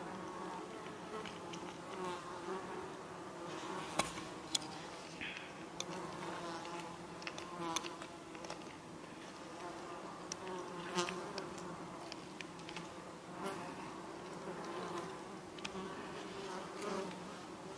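Flying insects buzzing steadily, with a wavering hum, and a few sharp clicks scattered through.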